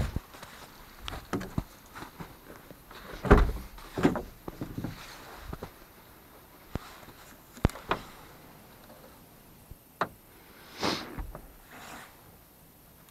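Irregular knocks, clicks and scrapes of handling against metal and plastic, the loudest a heavy thump about three seconds in and a short scraping rush near eleven seconds; no engine running.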